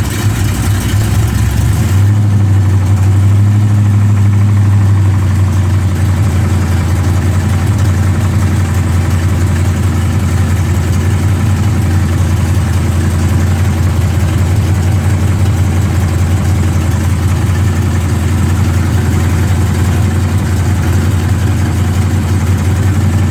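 Chevrolet 454 big-block V8 idling steadily, with a knock that the owner is trying to pin down as either a rod knock or a broken flex plate.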